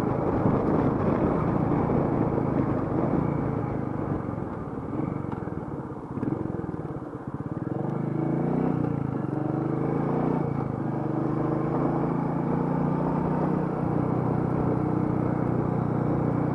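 Royal Enfield Meteor 350's single-cylinder engine running under way, with wind noise on the microphone. Its pitch falls and rises a few times between about four and eleven seconds in, as the bike slows and picks up speed, then holds steady.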